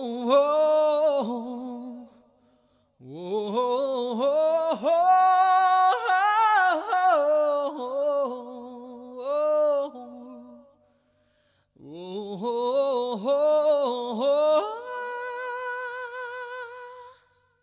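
A solo voice singing a wordless, ornamented melody with no accompaniment, in three long phrases separated by short pauses. The last note is held steady for a couple of seconds.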